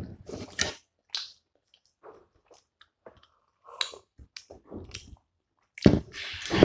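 Close-up eating sounds: wet chewing and squishing of soupy momo eaten by hand, in short irregular bursts with small clicks, and a louder burst near the end.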